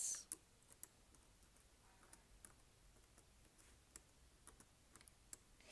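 Faint, scattered light clicks and ticks of a paper piercer tip poking small die-cut pieces out of cardstock, with a brief soft hiss at the very start.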